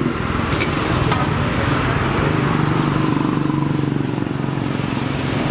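Road traffic with a motor vehicle's engine running steadily close by, over a general haze of street noise.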